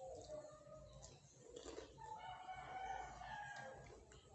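A rooster crowing, faint, with one long drawn-out crow through the second half.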